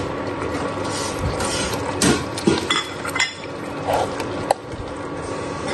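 Metal ladle scraping and clinking against a metal pan as paneer cubes are stirred into a thick masala gravy. There are a few sharp clinks over a steady background hum.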